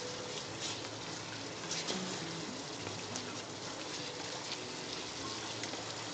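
Chicken curry sizzling and bubbling in a pan as it is stirred, the chicken and fried masala cooking in the chicken's own juices: a steady hiss with faint crackling.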